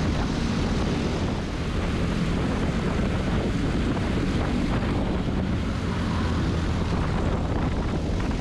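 Briggs & Stratton LO206 single-cylinder four-stroke kart engine running steadily at racing speed, heard from a camera on the kart, with wind buffeting the microphone.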